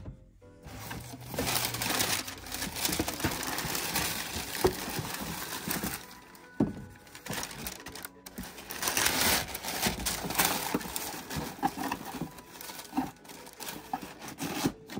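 Thin tissue paper crinkling and rustling as hands fold and handle it inside a cardboard shoe box. The rustling eases off for a couple of seconds around the middle, then starts again.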